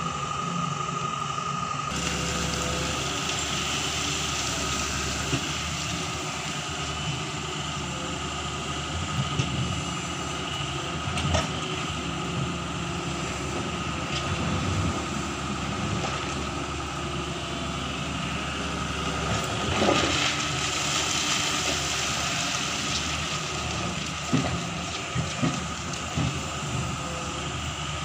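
Doosan 140W wheeled excavator's diesel engine running steadily as the machine works, with a steady whine over it and a few sharp knocks and clanks now and then.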